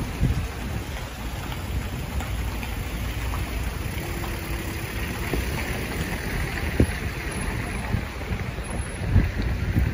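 Street ambience of car tyres hissing on wet asphalt as a car passes, with a low wind rumble on the microphone and a couple of dull knocks in the second half.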